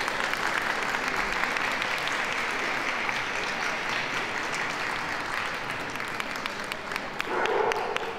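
Audience applauding, a steady patter of many hands clapping that slowly eases toward the end.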